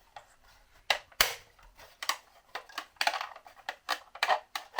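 Sharp plastic clicks and knocks, irregularly spaced and the loudest about a second in, as a lid is handled and fitted onto a 3D-printed plastic enclosure.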